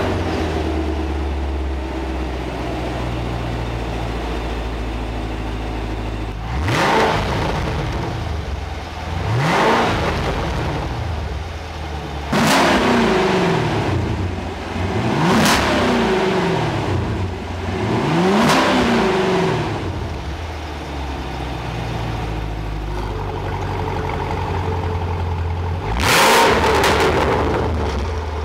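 2016 Camaro SS's 6.2-litre V8 idling through a quad-tip variable exhaust, then free-revved in five blips about three seconds apart, each rising and falling in pitch, with the exhaust's variable valves switched open. It settles back to idle, and one more blip comes near the end, with the valves switched off.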